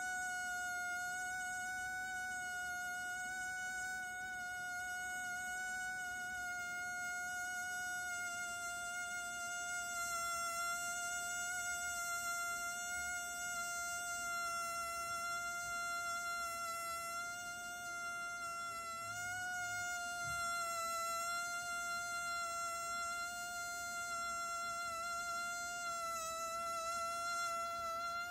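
A vibrating balloon giving a steady, high buzzing whine with many overtones, its pitch wavering a little and sagging slightly near the end.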